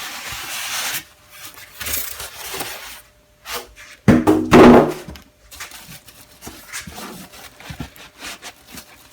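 Cardboard box and packing being handled as a boxed bench belt sander is unpacked: rustling, scraping and rubbing, with a loud squeaky rub of packing material about four seconds in.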